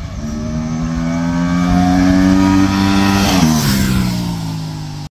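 Aprilia RS 457's 270-degree parallel-twin engine accelerating as the motorcycle rides up, its note climbing steadily, then flying past with the pitch dropping sharply about three and a half seconds in. The sound cuts off abruptly near the end.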